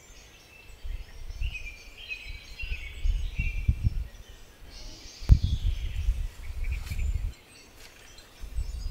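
Small birds singing in short chirping phrases over low, dull thumps and rumbling, with one sharp knock about five seconds in.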